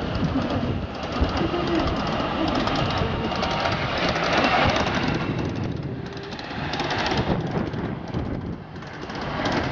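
Ride-on miniature railway train running along its track, heard from aboard: a steady noise of small wheels on the rails.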